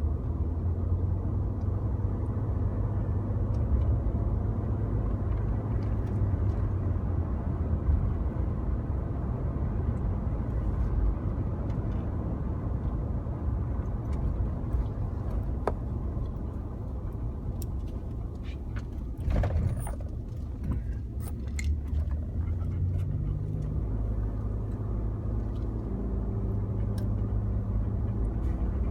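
Ford F-150 EcoBoost's twin-turbo V6 pickup under way, a steady low engine and road rumble whose hum shifts in pitch in the last third. A few sharp knocks sound about two-thirds of the way through.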